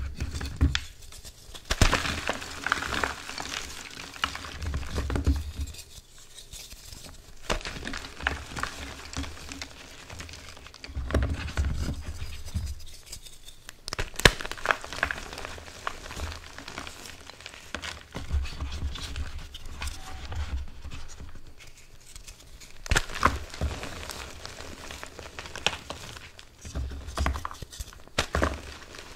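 Reformed gym chalk shapes crushed and squeezed by hand in a bowl: dry crunching and crumbling in uneven bursts, with scattered crackles and one sharp crack about halfway through.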